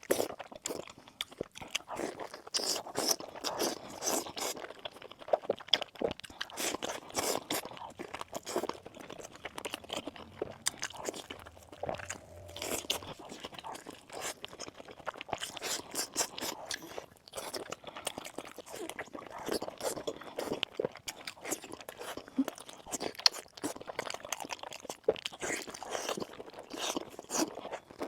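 Close-miked eating: continual crunching and chewing of food, dense irregular crunches with sharper bites throughout.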